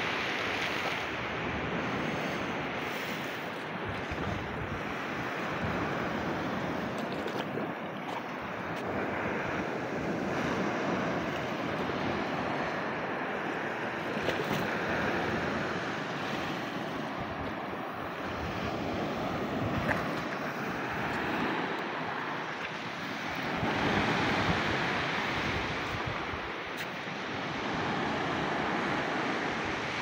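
Black Sea waves washing steadily onto the shore, swelling and easing now and then, with wind buffeting the microphone.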